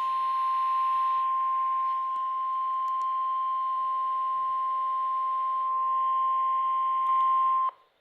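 NOAA Weather Radio warning alarm tone: a single steady, high 1050 Hz beep that cuts off near the end. It signals that an alert, here a severe thunderstorm watch, is about to be read.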